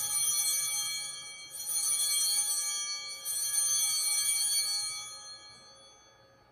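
Altar bells (Sanctus bells) rung three times at the elevation of the chalice after the consecration, about a second and a half apart. Each ring is a cluster of bright high tones, and the last fades out over a couple of seconds.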